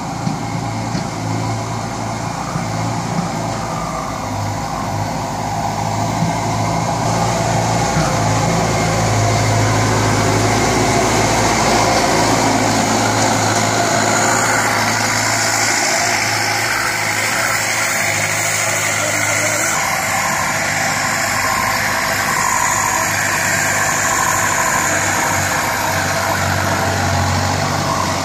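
Kubota tractor's diesel engine running steadily under load while its front blade pushes and grades loose soil.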